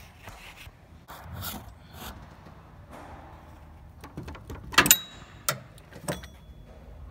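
Rubbing and clicking as a serpentine-belt tool levers the accessory-belt tensioner of a Honda Odyssey 3.5 and the belt is worked off its pulleys. A sharp metallic clack about five seconds in, with a brief ringing after it, and another click half a second later.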